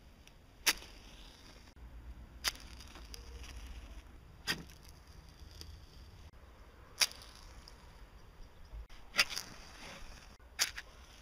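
Strike-anywhere 'cowboy' matches being struck on rough surfaces (a wooden table, a bench, a roof tile): about seven sharp scratches a second or two apart as the match heads catch, two of them close together near the end.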